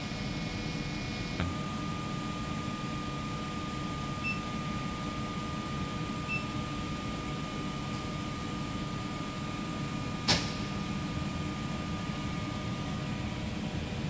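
A temperature-humidity test chamber runs with a steady machine hum and fan noise. About a second and a half in, a faint click brings on a steady high whine that lasts until near the end. Two short beeps come a couple of seconds apart, and there is a single sharp click about ten seconds in.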